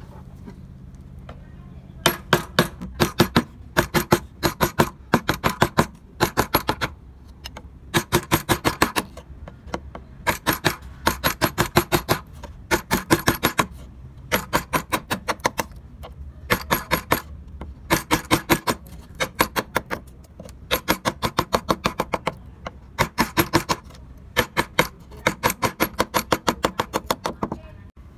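A mallet tapping on a wood-carving chisel in quick runs of sharp taps, about five or six a second, with short pauses between runs, as the chisel cuts into the wood. The tapping starts about two seconds in, after a faint steady hum.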